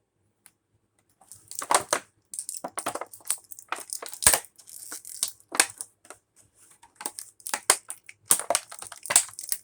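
Plastic toy packaging being crinkled and crushed by hand: irregular crackles and snaps that start about a second in and keep going.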